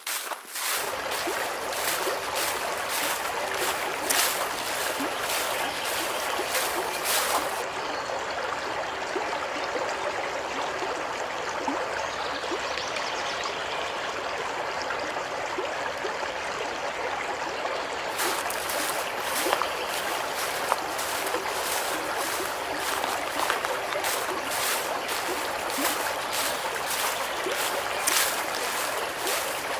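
Running water of a small stream: a steady rushing trickle with frequent sharp little ticks and splashes. The highest hiss thins out for about ten seconds in the middle.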